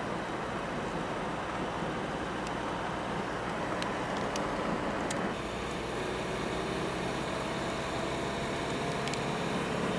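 Steady road noise inside a moving car: tyre rumble and engine hum at an even cruising pace, with a few faint ticks.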